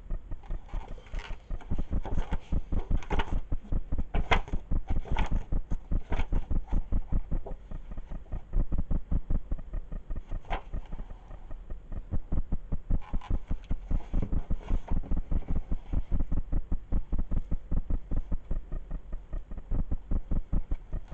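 Paper rustling as the pages of a recipe book are turned, about once a second for the first several seconds and a few more times later. Under it runs a steady, fast, even throbbing pulse.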